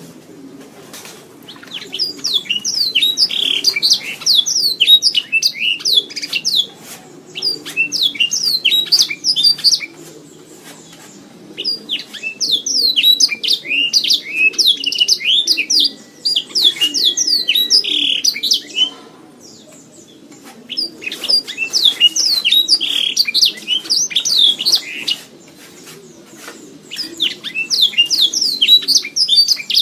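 Domestic canary singing: four long, fast phrases of rapid high chirps and trills, separated by pauses of about two seconds.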